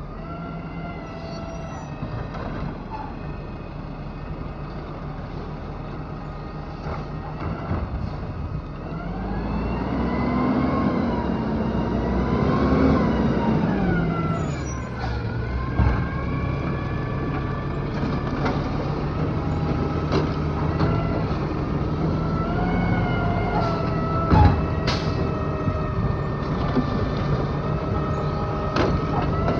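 Garbage truck's diesel engine running steadily, speeding up about nine seconds in and dropping back some four seconds later, with a few sharp clanks from the truck's lifting and emptying gear.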